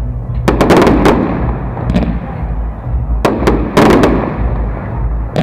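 Aerial fireworks shells bursting overhead in sharp bangs. A quick cluster comes about half a second in and another just past three seconds, with single bangs between.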